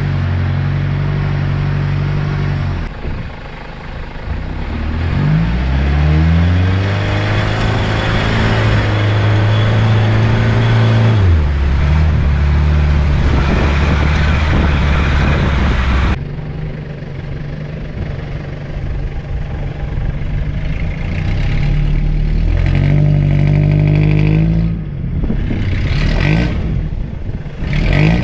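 Toyota Hilux LN167's 5L diesel engine revving hard in repeated rising and falling surges while the four-wheel-drive pushes and spins its wheels through muddy floodwater, with water splashing. About halfway the sound changes abruptly, and the engine runs and revs again in short bursts near the end.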